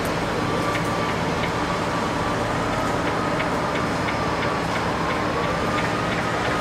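Steady mechanical running noise with a faint wavering whine and light ticking about three times a second.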